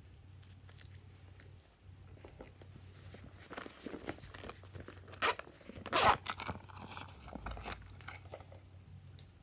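Hands working slime and a soft pink butterfly-shaped piece make crackling, sticky crunching sounds. They come thickest in the middle, with two sharp loud crackles about five and six seconds in.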